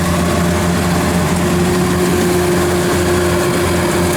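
Kubota DC93 combine harvester's diesel engine running steadily at an even, unchanging pitch.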